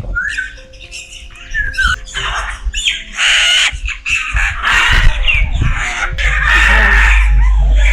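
A macaw squawking repeatedly in harsh, raspy calls. A low rumble joins in over the second half.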